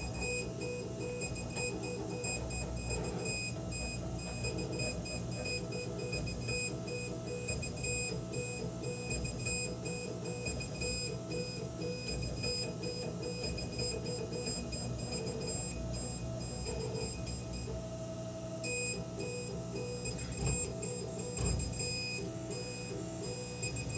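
K40 CO2 laser cutter's stepper motors whining in short tones that start, stop and change pitch as the head traces the zigzag finger-joint outlines, over a steady low machine hum.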